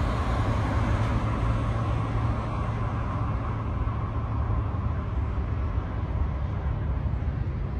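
Airplane take-off noise: a steady low rumble, its higher hiss slowly fading away.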